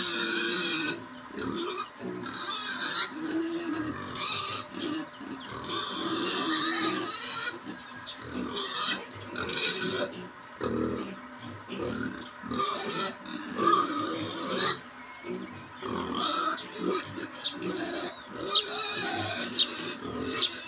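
Young pigs grunting and oinking, a string of short irregular calls.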